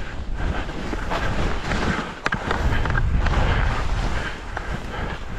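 Wind buffeting the microphone, with the hiss and scrape of skis on snow during a downhill run. There is one sharp click a little past two seconds in.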